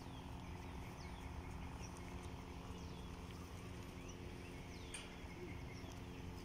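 Faint open-air ambience: a small bird giving short chirps that fall in pitch, several times about a second apart, over a steady low hum and rumble.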